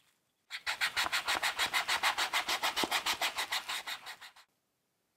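Rapid, even rubbing scrape, about eight strokes a second, starting about half a second in and stopping after about four seconds.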